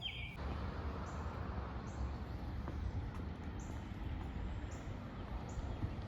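Outdoor morning ambience: a bird chirp right at the start, then a steady low rumble, with a faint high peep repeating about once a second.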